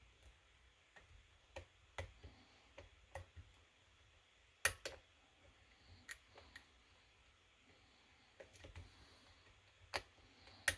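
Faint, irregular small metallic clicks and ticks of a lock pick and tension wrench working the pins of a kick cylinder, with a few sharper clicks about five seconds and ten seconds in.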